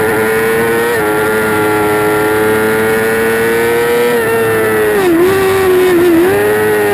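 2008 Yamaha R6's inline-four engine racing at high revs. About a second in it is shifted up into fourth and the pitch drops. The revs then climb slowly, and near the end the pitch dips twice as it is shifted down to third.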